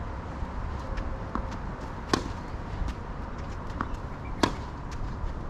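Tennis ball struck by rackets and bouncing on the court during a forehand rally: sharp pops, the two loudest about two seconds and about four and a half seconds in, with fainter knocks between.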